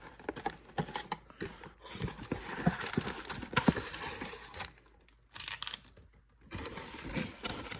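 Trading card packs and their cardboard box being handled: crinkling wrappers, rustling and small clicks in bursts with short pauses, as crumpled packs, one of them stuck, are worked out of the box.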